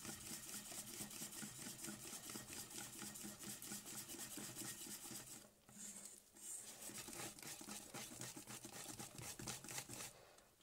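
Wire whisk beating pancake batter in a stainless steel bowl: quick, even strokes of the wires scraping and swishing through the batter against the metal, with a short break about five and a half seconds in, then stopping near the end.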